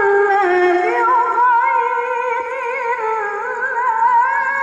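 A young woman chanting Quran recitation (tilawah) in the melodic qariah style into a microphone: one long unbroken phrase of held notes with wavering ornaments.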